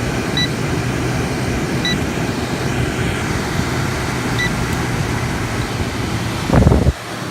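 Frigidaire 8000 BTU window air conditioner running its fan only, with a steady rush of air and a low hum, and its control panel beeping about four times as buttons are pressed. Near the end there is a short thump and the fan noise drops away. The compressor has not yet started, as this unit takes a while to enable it.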